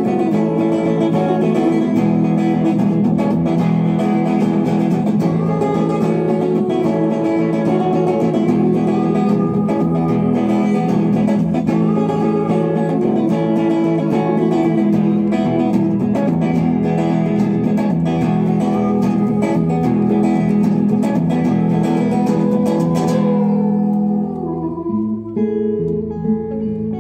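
Live music led by guitar, full and steady; about 23 seconds in it drops back to a quieter, sparser guitar part.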